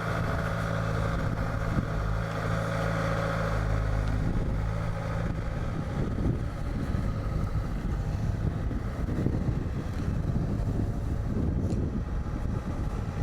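Construction machinery engine running steadily for about the first five seconds, then wind buffeting the microphone as road base is placed and compacted.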